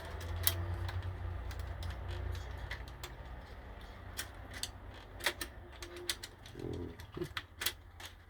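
Scattered small clicks and taps of tools and small parts being handled on a cassette deck's mechanism during repair, over a low hum that fades after about three seconds.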